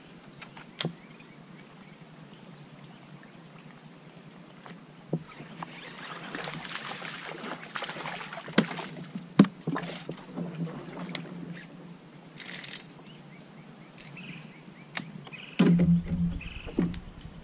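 Scattered knocks, clicks and handling noises on a small fishing boat. A hissy stretch runs through the middle, and a few heavier thumps with a low rumble come near the end.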